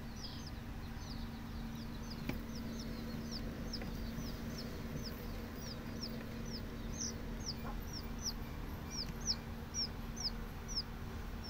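A domestic chick peeping: a steady run of short, high peeps, each falling in pitch, about two to three a second, louder in the second half.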